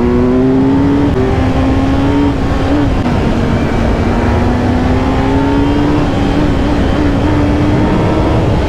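Kawasaki Z900's inline-four engine pulling under acceleration while riding, its note climbing slowly and holding high over a loud rushing noise.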